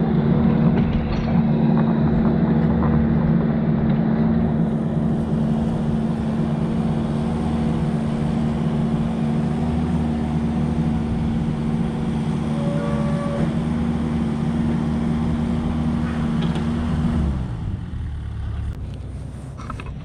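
Vehicle engine running with a steady hum, then falling in pitch and easing off about three seconds before the end, as the engine slows.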